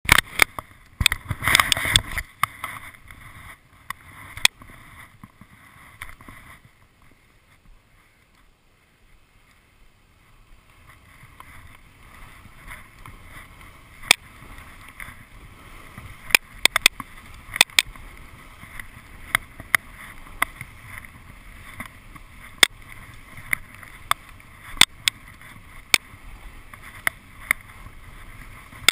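Skis sliding over freshly groomed corduroy snow, picked up by a GoPro: a steady hiss with sharp clicks scattered through it. The first two seconds hold loud knocks and rustling as a gloved hand handles the camera, and the hiss only builds after about ten seconds.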